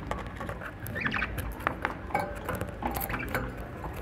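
Budgerigars in a cage chattering: a run of short squeaky chirps mixed with small clicks, busiest about a second in.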